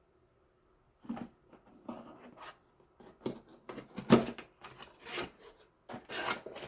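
A cardboard model-kit box and its packaging being handled and opened: irregular scraping and rubbing noises, the loudest about four seconds in.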